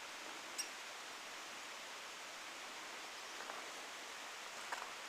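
Steady, even hiss of outdoor ambience, with one short, sharp, high-pitched note about half a second in and a few faint ticks near the end.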